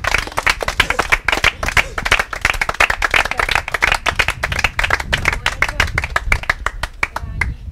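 A small group clapping and applauding, the claps thinning out and stopping near the end.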